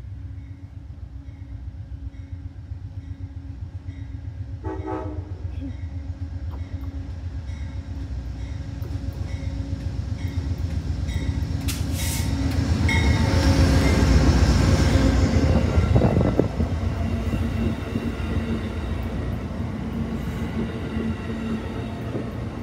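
Amtrak GE Genesis diesel locomotive hauling stainless-steel passenger cars, approaching and passing at speed. A short horn blast comes about five seconds in. The rumble builds to its loudest as the locomotive goes by, then the cars run past with steady wheel-on-rail noise.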